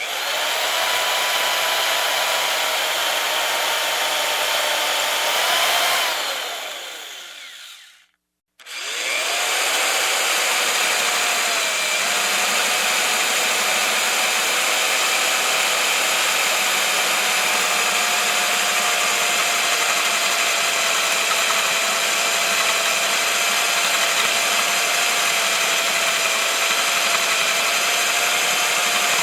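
Electric drill running at steady speed with a high motor whine. About six seconds in it is released and spins down to silence. It is then started again, winds up and runs steadily on.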